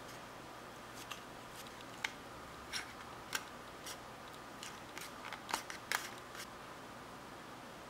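Small plastic spatula scraping and tapping on a plastic candy-kit tray, trimming excess dough off a flower-shaped donut mold: about a dozen light clicks and short scrapes, most of them bunched a little past the middle, then stopping.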